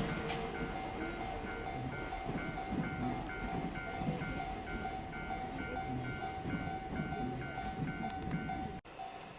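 Japanese railway level-crossing alarm ringing, a repeating electronic ding about twice a second, over the rumble of a train on the tracks. Near the end the sound drops abruptly and the crossing alarm carries on.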